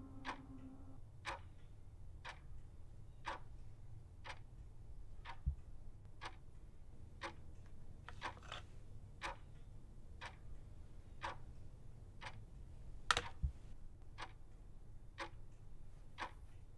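Alarm clock ticking steadily about once a second, one tick noticeably louder toward the end, over a faint low hum.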